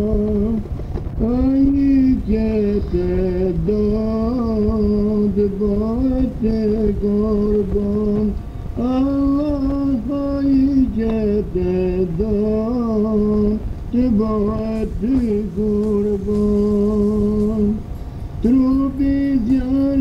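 A single voice singing an ilahi, a Sufi devotional hymn: one ornamented melodic line of long held notes with short turns, breaking briefly for breath about eight and eighteen seconds in.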